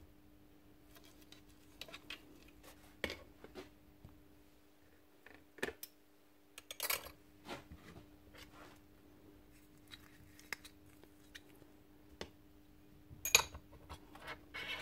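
Scattered light clicks and knocks of metal hammer parts being handled, set down and fitted into a demolition hammer's open gear housing on a workbench, with a few sharper knocks about 7 and 13 seconds in, over a faint steady hum.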